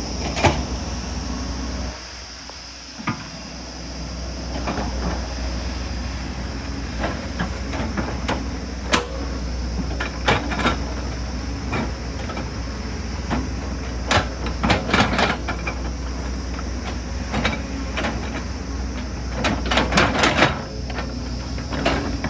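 Excavator engine running steadily, with many sharp metallic knocks and clanks from the machine working, grouped in quick clusters around the middle and near the end. The engine note dips briefly about two seconds in.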